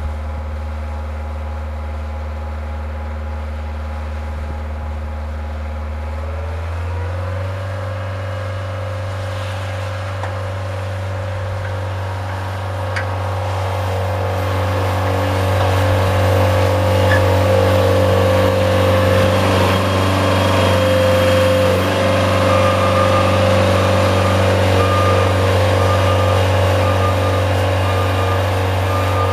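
Bobcat S175 skid-steer loader's diesel engine warming up after a cold, reluctant start: it runs steadily, then the throttle is raised about seven seconds in and it holds at a higher, louder speed. A faint repeated beep comes in near the end.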